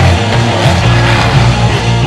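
Loud rock music with electric guitar, a soundtrack laid over the footage.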